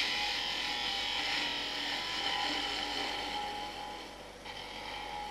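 A Record Power 3/8-inch high-speed-steel spindle gouge cutting along a spinning wooden spindle on a lathe, a steady hiss of the shaving cut with the bevel rubbing. The hiss tapers off about four seconds in as the tool reaches the point of the cone.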